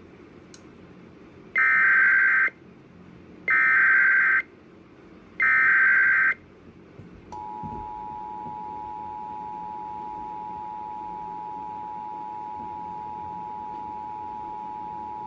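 Emergency Alert System signal: three short bursts of SAME header data tones, each just under a second long and about a second apart, then the EAS two-tone attention signal, a steady dual tone held for about eight seconds, opening a Local Area Emergency alert.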